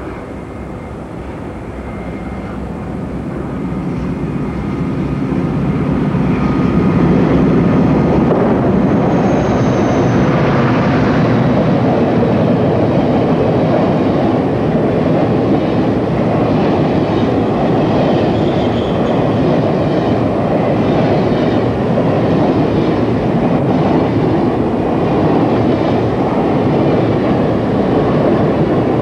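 Amtrak passenger train hauled by two EMD F40PH diesel locomotives, growing louder over the first several seconds as it draws near. Then the steady noise of its bilevel passenger cars rolling past close by.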